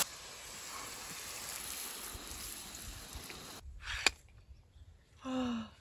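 Water from a garden hose running steadily onto rocks and soil, stopping about three and a half seconds in. A single sharp click follows, then a brief vocal sound near the end.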